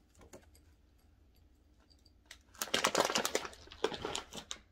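A plastic cat food bag crinkling as it is handled, a dense crackle lasting about two seconds in the second half, after a few faint clicks.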